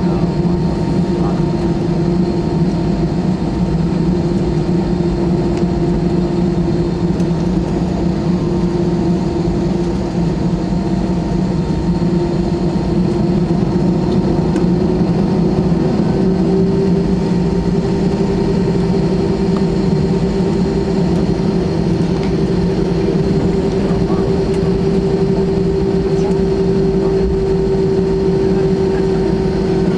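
Cabin noise of an Airbus A320-216 on the ground, heard from a seat over the wing: its CFM56 jet engines run at low taxi thrust. It is a steady engine hum with a held tone that rises slightly about halfway through.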